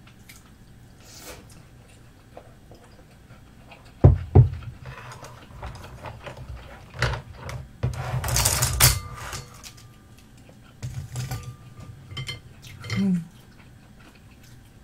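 Tableware and eating sounds: two sharp knocks about four seconds in, scattered clicks of skewers and dishes, and a short noisy burst around eight seconds.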